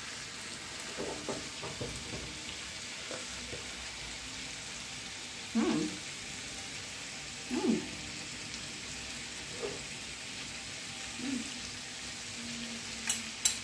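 Bitter melon and vegetables sizzling steadily in a frying pan. A few brief, louder low sounds stand out over the sizzle, and two sharp clicks come near the end.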